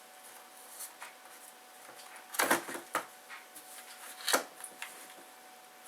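Hard plastic parts of a 1999 Honda Civic instrument cluster being handled and pressed together: a few short plastic clicks and rattles, a cluster about two and a half seconds in and a sharper click a little past four seconds, as a part that is not lining up is worked into place.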